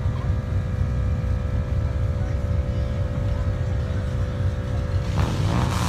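A car engine running steadily at cruising pace, heard from inside the car, with a steady hum above the low rumble. A short burst of hiss comes about five seconds in.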